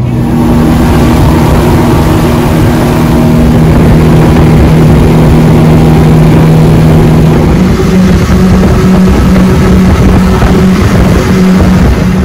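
Motorboat engine running loud and steady under way, heard on board with a rush of wind and water; about two thirds of the way in its pitch steps up a little and then wavers.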